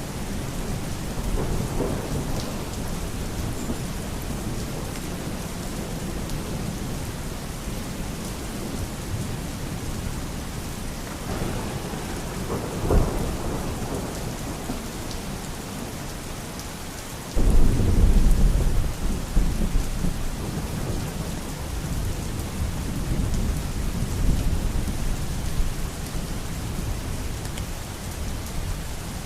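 Steady heavy rain with rolling thunder. A short sharp clap comes a little before halfway, and just past halfway a louder thunderclap breaks suddenly and rumbles on for several seconds before fading back under the rain.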